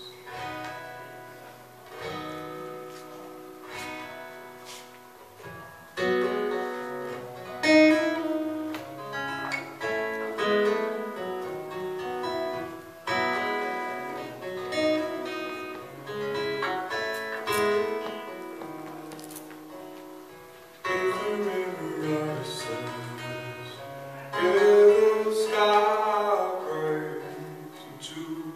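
Acoustic guitar being played, with picked and strummed chords, and a voice singing over it in places, most strongly near the end.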